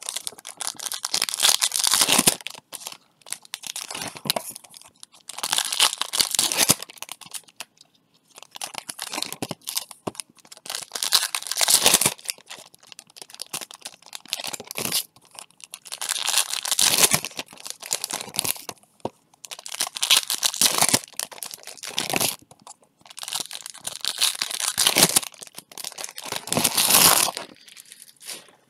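Baseball card pack wrappers being torn open and crinkled by hand, one pack after another, in a burst of tearing every few seconds.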